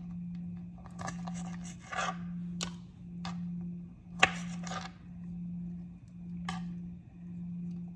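Knife cutting cherry tomatoes in half on a plastic cutting board: irregular sharp clicks and scrapes as the blade meets the board, the loudest about four seconds in. A low hum swells and fades about once a second underneath.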